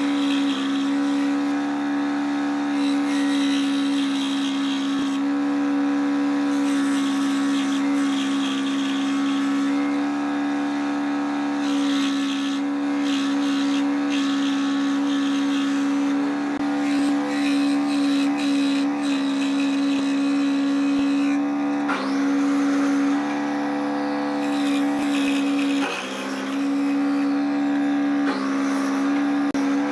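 Small benchtop scroll saw running with a steady hum while its blade cuts a thin strip of dark wood. The pitch dips briefly about two-thirds of the way through and again a few seconds later.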